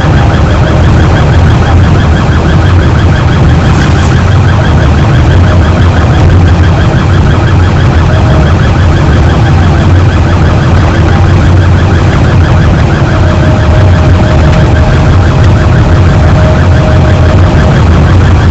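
Ambulance siren sounding continuously and very loudly, with a fast repeating warble over a heavy low rumble. A steady tone joins in for a few seconds near the end.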